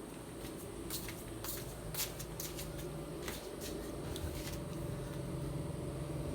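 Scattered light clicks and rustling of equipment and cables being handled, over a steady low hum that grows a little stronger after about four seconds.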